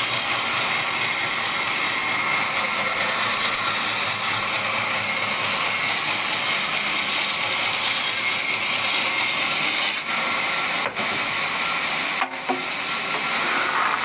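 Large vertical band saw ripping a wooden beam lengthwise as it is pushed by hand through the blade, giving a steady sawing noise. The sound dips briefly a few times near the end.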